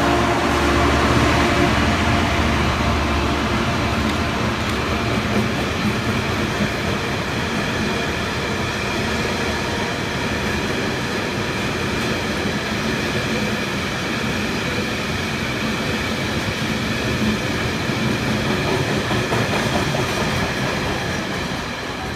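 Diesel-hauled freight train passing: the locomotive's engine note fades over the first few seconds, then the wagons roll past in a steady rumble.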